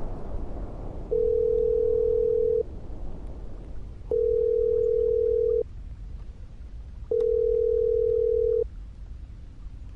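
Ringing tone of an outgoing phone call: three steady, slightly pulsing beeps, each about a second and a half long, one every three seconds.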